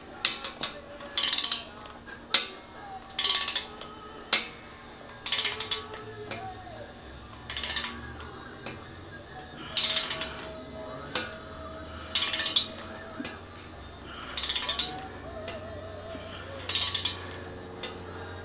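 Wrench ratchet clicking in short bursts on each back-swing, about every one to two seconds, as a nut is run down a head stud in a Subaru EJ engine block.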